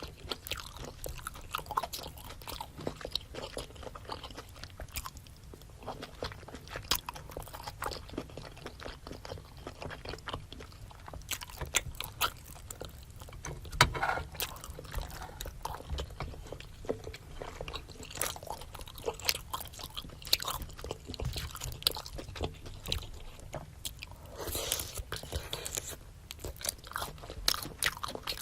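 Close-miked chewing and biting of spicy seafood boil and rice cake: a steady run of short crunches and mouth clicks, with one louder bite about halfway through.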